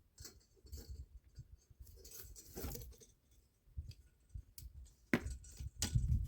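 Scattered small clicks, clinks and rustles of hardware and tools being handled, with a few sharper clicks near the end.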